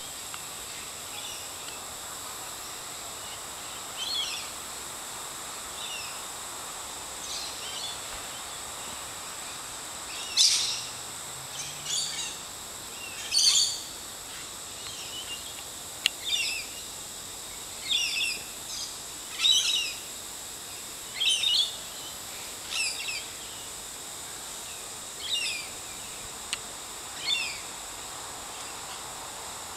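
Birds calling in the trees: short chirping calls repeated every second or two, faint at first and loudest through the middle, over a steady high-pitched drone.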